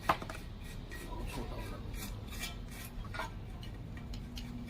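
Metal hand tools and engine parts clinking and scraping during work on a timing chain: one sharp clink just after the start, then scattered lighter clicks.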